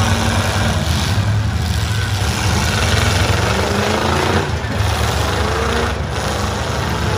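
Full-size demolition derby cars' engines running together in a loud, steady rumble, with short rising revs now and then as drivers push into each other.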